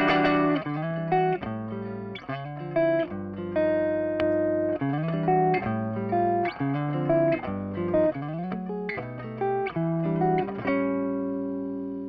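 Electric guitar with single-coil pickups played through a TC Electronic HyperGravity compressor pedal and amp: a picked single-note melodic line, each note sustained, with the last note left to ring and fade near the end.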